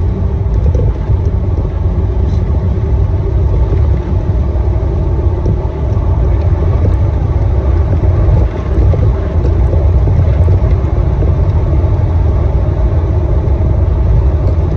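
A Jeep driving at speed, heard from inside: a loud, steady low rumble of engine, tyre and wind noise.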